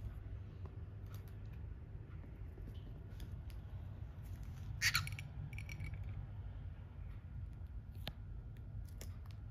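Pet cockatiels making light scattered clicks and taps over a low steady hum, with one short, sharper sound about five seconds in.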